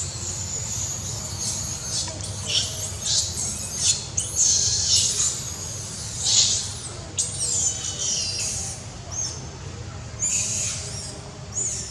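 Young macaque giving a string of short, high-pitched screaming calls, the loudest about halfway through and a last quick pair near the end.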